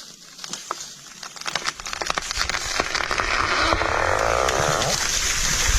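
A tree coming down after felling: wood cracking and snapping, more and more often, swelling into a loud rushing crash through the branches, with a heavy low thud starting near the end.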